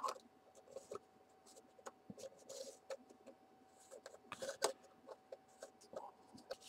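Faint scattered clicks and light metallic scraping as a lens is screwed by hand into the M39 thread mount of a FED-2 rangefinder camera, with small clusters of ticks about two and a half, four and a half and six seconds in.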